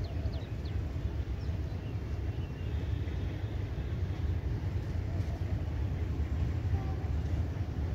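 Steady low rumble of outdoor ambience with no distinct event, and a few faint high chirps about a second in.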